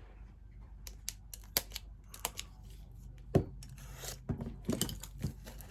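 Hands handling and unwrapping a journal: scattered taps and clicks with crinkling and tearing of its wrapping, and a sharper knock about three and a half seconds in.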